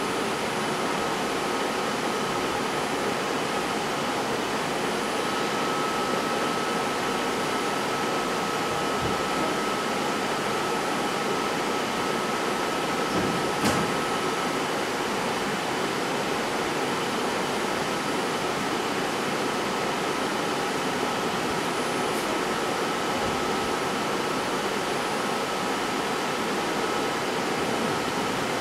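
Steady fan-like whirring with a faint high-pitched whine running through it and a soft click about halfway through.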